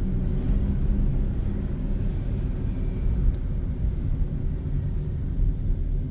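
Steady low rumble of a car driving along a city road: engine and tyre noise.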